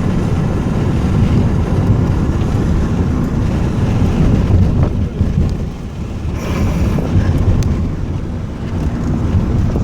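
A car driving over a rough, potholed road, heard from inside the cabin: a loud, steady low rumble from the tyres and suspension, with a few knocks and rattles over the second half.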